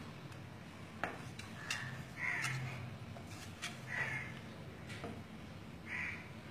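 Crows cawing repeatedly in the background, about five or six short harsh calls, with a few sharp clicks in between.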